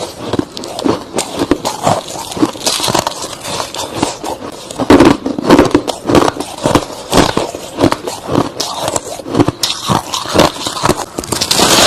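Close-miked chewing of soft freezer frost and crushed ice: a dense, irregular run of crunches, several a second.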